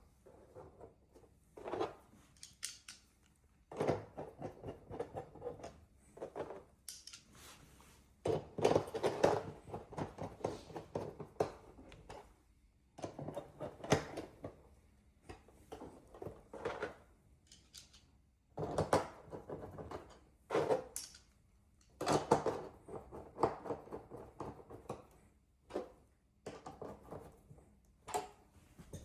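Hands handling strips on the back of a flat-screen TV: irregular rustling, rubbing and scraping with scattered small clicks and taps.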